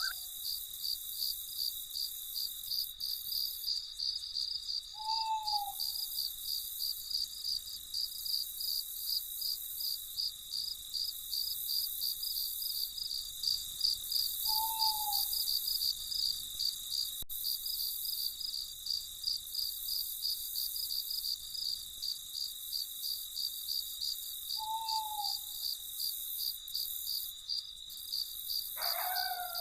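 Crickets chirping in a steady, fast, high pulse, with an owl giving a single short falling hoot three times, about ten seconds apart. Another bird call breaks in right at the end.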